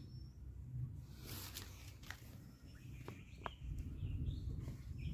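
Stiff, dry areca palm leaf sheath rustling as a thin stick is worked through it, with a brief rustle and a few short sharp clicks in the middle. Small birds chirp faintly now and then.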